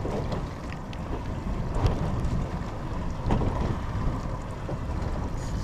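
Wind buffeting the microphone aboard a small fishing boat, a steady gusting low rumble, with a few faint knocks.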